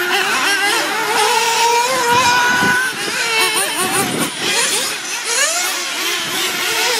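Nitro RC buggies' small glow engines whining on the track, several at once, their pitch rising and falling as they accelerate and back off.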